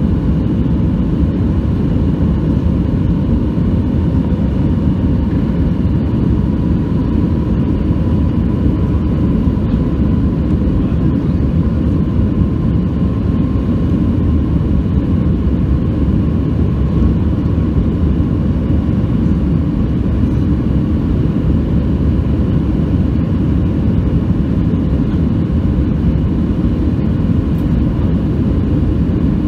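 Airbus A319 cabin noise in the climb after take-off: the steady roar of its two CFM56 engines and the rushing airflow, heard inside the cabin, with a faint steady whine over it.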